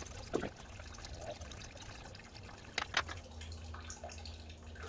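Engine coolant trickling and dripping as the radiator drains, with a few sharp clicks and knocks, once early on and twice near three seconds in, from work on the upper radiator hose.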